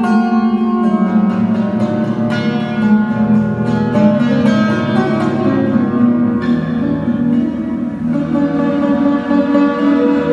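Instrumental music on plucked strings, guitar and oud, playing a slow melody over held notes.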